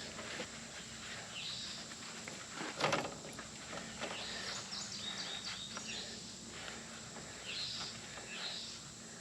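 Birds chirping now and then, with a few light knocks and clicks, the loudest about three seconds in, over a faint steady hum.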